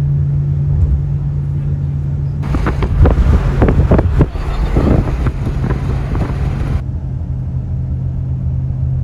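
Car driving, heard from inside the cabin: a steady low hum and road rumble. From about two and a half seconds to nearly seven seconds in, a louder, rougher rushing noise with crackles rides over it.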